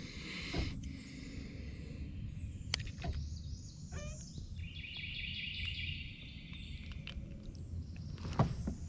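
Outdoor riverside ambience: a steady high hiss that stops about a second in and comes back around the middle, over a low rumble, with a few small clicks and a short run of chirps about four seconds in.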